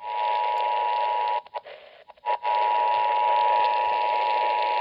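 Emergency Alert System two-tone attention signal, a steady dual tone, coming through the small speaker of a Solar Crank CR1009 weather radio over static hiss. It drops out for under a second about a second and a half in, with a few clicks, then resumes.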